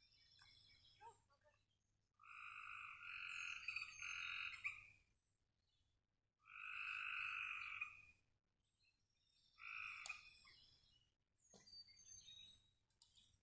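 A frog calling in three long, even trills, each lasting one to two and a half seconds, with birds chirping faintly in the background.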